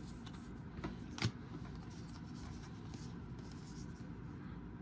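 Faint rubbing and sliding of 2013-14 Panini Hoops basketball cards being flipped through by hand, with light ticks and one sharp click about a second in.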